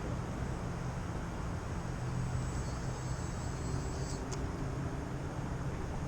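Radio-controlled model airplane in flight, its motor and propeller giving a thin, steady high whine over wind rumble on the microphone; the whine dips and cuts off about four seconds in.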